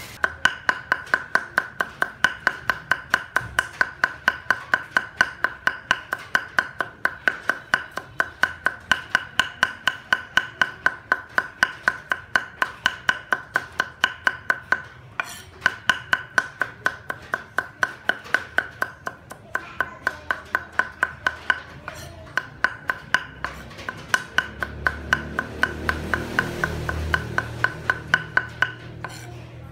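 Fast, steady mincing of garlic with a knife on a round wooden chopping board: about five knocks a second, each with a ringing tone, pausing briefly twice. A low rumble rises underneath near the end.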